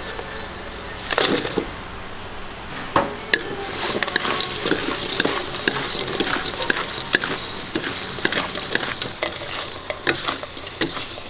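Wooden spatula scraping and knocking against a steel wok as fried pieces are tossed in a sizzling sticky gangjeong sauce, in quick irregular strokes. Louder knocks come about a second in and again about three seconds in.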